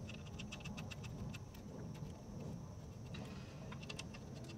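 Faint, irregular light metallic clicks and ticks as hands handle small parts at the centre of a car's front wheel hub.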